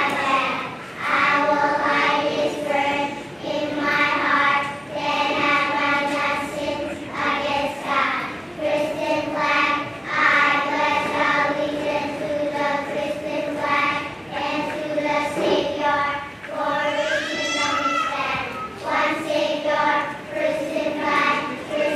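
A group of young children singing together in unison, in phrases of held notes.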